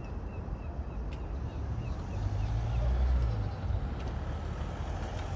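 Outdoor traffic noise: a steady low rumble that swells for about a second and a half in the middle, as a vehicle goes by. A short high chirp repeats about three times a second through the first half, then stops.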